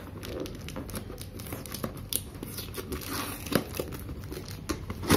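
Packing tape being peeled and torn off a cardboard box, with irregular crackling rips and the crinkle of the loose tape.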